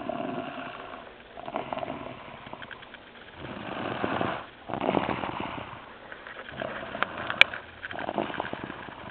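Snoring: about six rasping breaths, roughly one every second and a half, with a single sharp click about seven seconds in.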